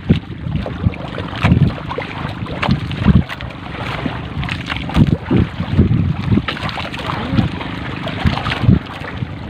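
Wet triple-layer gill net being hauled by hand over a boat's gunwale, with repeated knocks and splashes of sea water as it comes aboard. Under it runs the steady hum of the boat's engine, with wind on the microphone.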